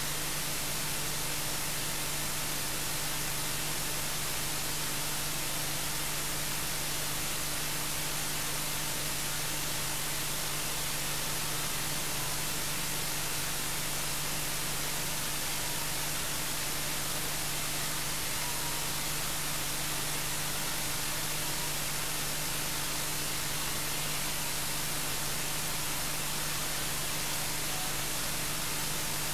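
Steady electronic hiss like static, with a low hum underneath and nothing else.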